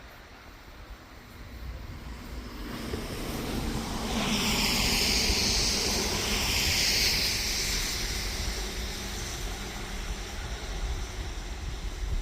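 Toboggan sliding down a snowy slope: a hiss of snow under the sled that builds over the first few seconds, is loudest in the middle, then eases off, over a low rumble of wind on the microphone.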